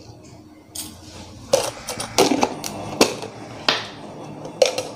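A plastic jar being handled and opened: a series of sharp clicks and knocks from the lid and container, about one a second.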